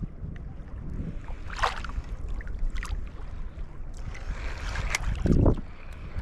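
Wind buffeting the microphone over shallow sea water sloshing and lapping, with a few brief splashy streaks and a louder low rush about five seconds in.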